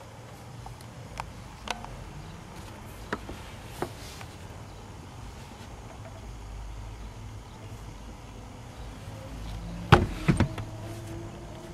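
Handling noises inside a car: a few light clicks over a low rumble, then a cluster of louder knocks about ten seconds in as a hand pushes on the upholstered front seat back, followed by a faint brief whine.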